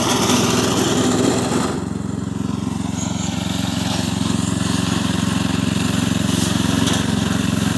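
Power tiller engine running steadily. Less than two seconds in, a hissy upper layer drops away and the engine carries on in a steadier, slightly quieter run.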